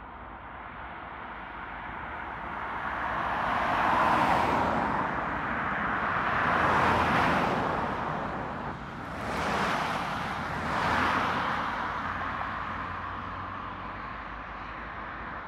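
A string of cars passing close by on a road, their tyre and engine noise swelling and fading four times in turn, loudest about four and seven seconds in.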